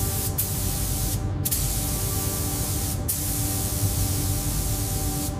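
Robotic paint spray gun hissing as it sprays a fine mist of paint, over a steady hum. The hiss breaks off briefly three times.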